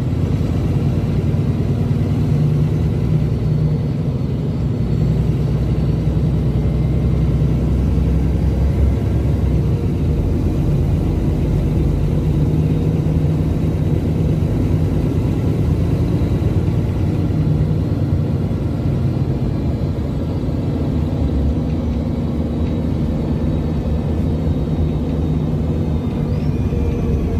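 Cabin noise inside a moving NEFAZ 5299 city bus: its Cummins ISBe diesel engine running steadily while cruising, under a constant low rumble of road and tyre noise.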